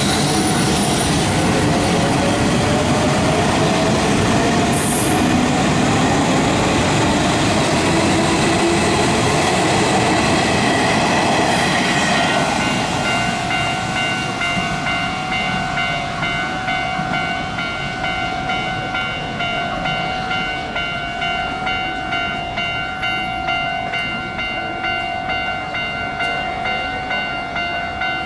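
Level-crossing warning bell ringing with an even pulse while Hanshin electric trains pass over the crossing, their running noise and a rising motor whine loudest for about the first twelve seconds. After the trains clear, the bell rings on alone.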